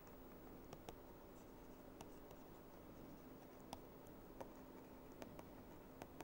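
Faint taps and scratches of a stylus writing on a pen tablet: a few sharp little ticks scattered over the seconds, over a faint steady hum.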